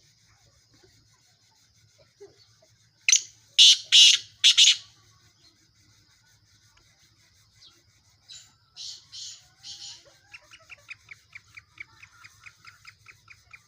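Black francolin calling: a loud, harsh call of four grating notes about three seconds in, and a fainter three-note call a few seconds later. Near the end a fast run of short ticking notes, about seven a second, sets in.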